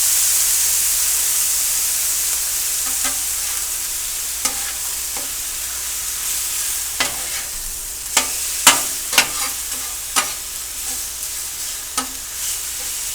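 Food sizzling and hissing on a hot Blackstone flat-top griddle just after water has been added for steam, the hiss loudest at the start and slowly fading. From about three seconds in, a metal utensil clacks and scrapes on the steel griddle a handful of times, most sharply in the middle of the stretch.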